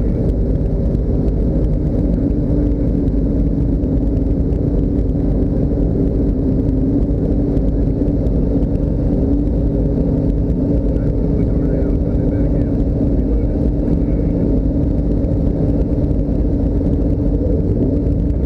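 A motor vehicle running steadily, with a constant low rumble of engine and road noise and a steady drone that holds its pitch.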